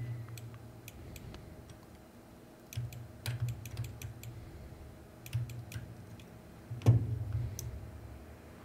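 Scattered light clicks of a computer mouse and keyboard, with a few soft low thuds against the desk. The loudest thud comes about seven seconds in.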